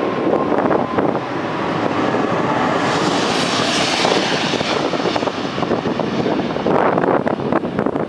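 Airbus A340 jet airliner on landing approach, its four engines a steady roar with a hissing high end that swells about three to five seconds in as the plane passes closest.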